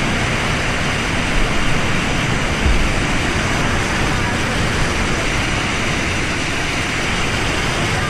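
Waterfall rushing and splashing onto rock right beside the microphone, a loud steady roar of falling water. Two brief low bumps come about one and a half and three seconds in.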